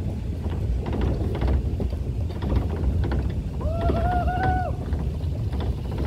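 Pick-up truck driving over a rough dirt track: a steady low rumble of engine and wind with the body rattling and clicking. Near the middle a single pitched tone sounds for about a second, rising slightly, then stops.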